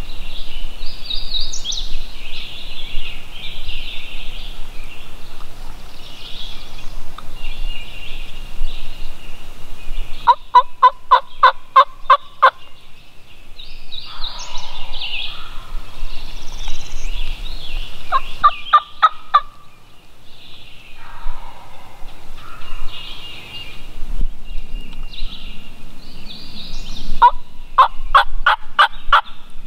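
A wild turkey gobbler gobbling three times, each gobble a loud, fast rattling burst: the first about ten seconds in and longest, a short one near the middle, and another near the end. Songbirds chirp steadily in the background between the gobbles.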